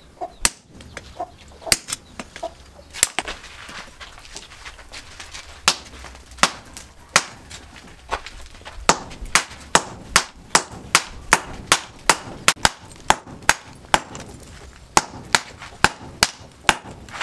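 Hammer blows on red-hot steel from a car axle, held in tongs on a steel post anvil during axe forging. The strikes are sparse at first, then from about halfway settle into a steady run of about three sharp blows a second.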